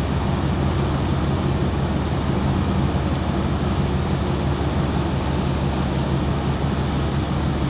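Steady low drone of a boat's diesel engine running under way, with an even hiss of wind and water over it.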